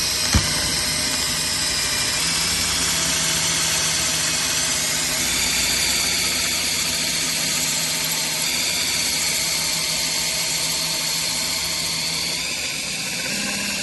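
Electric drill running steadily under load as it bores a hole through an acrylic (perspex) wall panel, with a sharp click just after the start.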